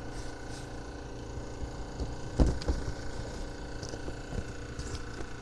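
Two dull knocks about halfway through, from handling on the wooden workbench, over a steady low rumble and a faint steady high whine.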